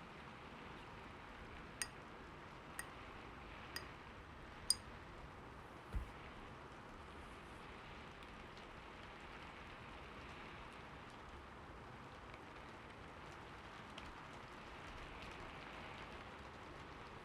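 Steady faint hiss with four light, high clicks about a second apart, then a single dull low thump about six seconds in.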